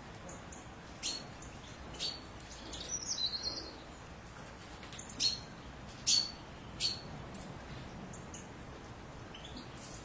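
European goldfinches calling: sharp, high call notes every second or so, with a short twittering run of chirps about three seconds in.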